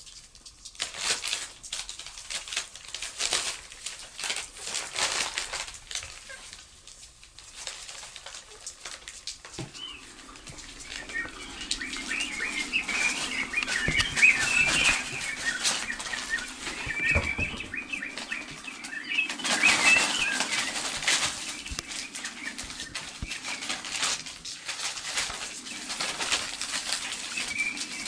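Sound-effect recording of birds: wings flapping in repeated flutters. From about ten seconds in, chirping calls and a steady low hum join the flapping.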